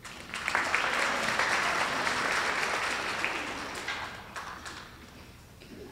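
Audience applauding: a dense patter of clapping that starts at once, holds for about three seconds, then dies away.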